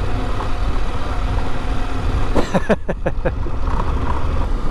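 KTM 890 Adventure parallel-twin engine running as the bike is ridden, under steady wind rumble on the camera microphone, with a brief sound of changing pitch about two and a half seconds in.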